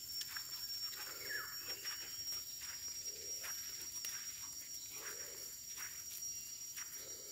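Footsteps on a dry dirt path strewn with leaves, over a steady high-pitched insect drone. A soft low sound repeats about every two seconds.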